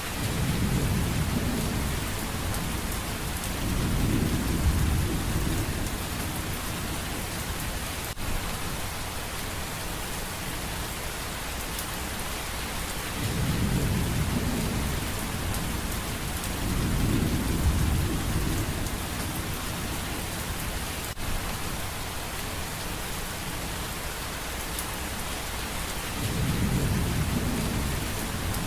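Steady rain hissing, with low rolls of thunder swelling and fading several times.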